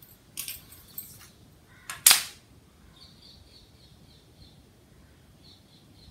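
A few brief scrapes as a long ruler is shifted on cloth, then one sharp clack about two seconds in as it is put down on the hard floor.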